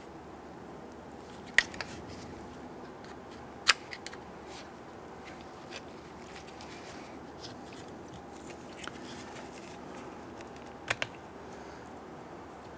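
Three sharp plastic clicks, the last one doubled, over faint room tone as a car door speaker and its plastic clips are handled.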